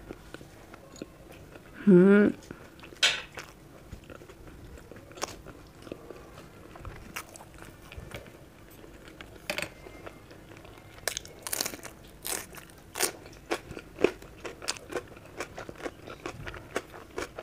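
A person chewing mouthfuls of chapati with potato and capsicum sabzi close to the microphone: a steady run of short mouth clicks and smacks. About two seconds in comes one brief, loud vocal sound, the loudest moment.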